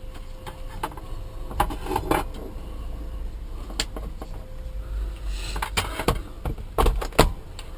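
Scattered sharp clicks and knocks of a power plug and wiring being handled and plugged in, a few close together near the end, over a low rumble.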